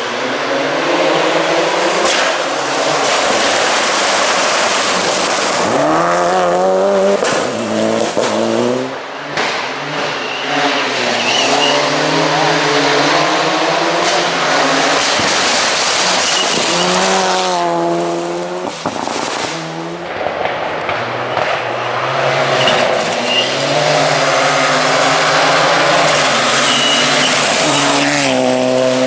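Mitsubishi Lancer Evo rally car's turbocharged four-cylinder at full attack, its pitch repeatedly climbing and dropping through the gears. The anti-lag system adds sharp bangs and crackles.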